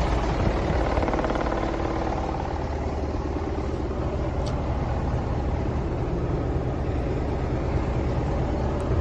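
Medium-duty truck's diesel engine idling steadily.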